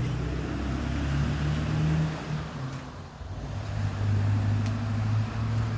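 An engine running steadily with a low hum, dipping briefly about halfway through before settling back.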